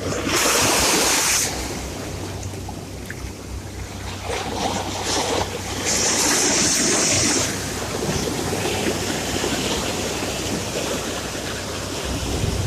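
Sea surf: waves washing in with a steady hiss, and two louder hissing surges, one about a second in and one about six seconds in.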